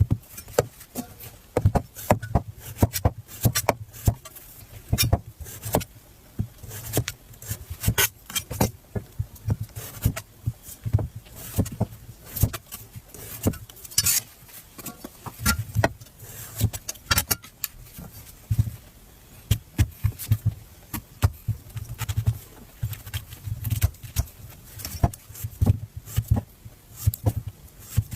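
Knife cutting and carving fruit: irregular sharp clicks and taps of the blade, several a second, some with a dull thud against the cutting board.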